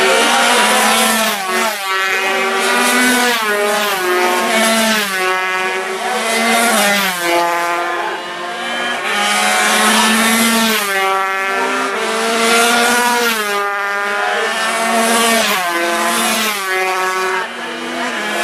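Racing motorcycles passing one after another and accelerating hard through the gears. Each engine's pitch climbs, then drops sharply at an upshift, again and again.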